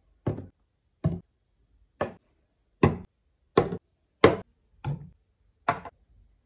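Plastic and glass skincare bottles set down one after another on a hard tabletop: a sharp knock each time, about eight in all, evenly spaced.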